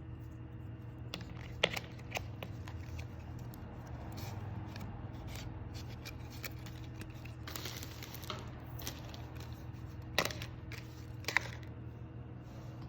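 Handling noises from unboxing a smartphone: a few sharp clicks and taps, and a stretch of scraping and rustling of packaging partway through, over a steady low hum.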